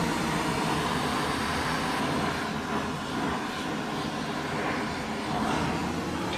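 A steady machine running, a continuous whooshing noise with a low hum.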